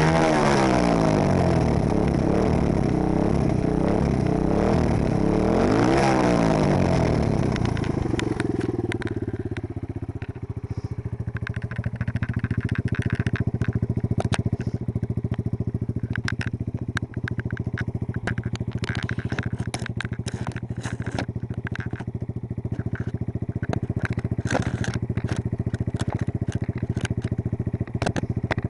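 AJP motorcycle engine revved, its pitch rising and falling, then dropping to a steady idle about eight seconds in. Frequent sharp clicks and crackles sound over the idle.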